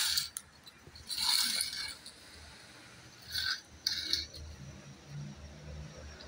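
PVC plastic pipe fittings scraping and knocking against each other and the pump body as they are handled and pushed into place, in four or five short bursts.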